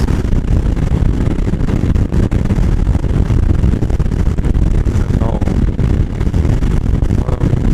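A motorcycle cruising at highway speed, heard through the rider's on-bike camera microphone: a steady, loud rumble of wind buffeting, engine and road noise.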